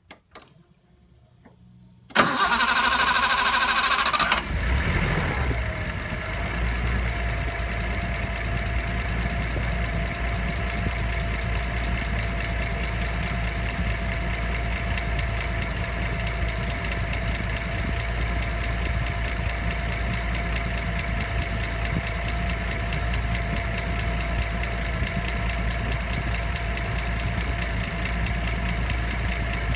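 Nissan L20ET turbocharged straight-six cranking on the starter for about two seconds, catching and settling into a steady idle. A thin steady whine runs through the idle, and the owner asks whether it is an abnormal noise.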